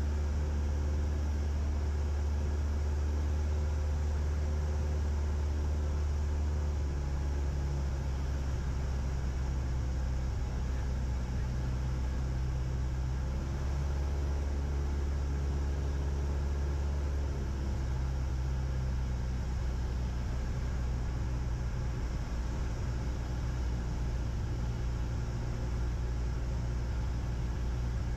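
Cessna 172's single piston engine and propeller droning steadily in cruise, heard inside the cabin. The tone shifts slightly about seven seconds in.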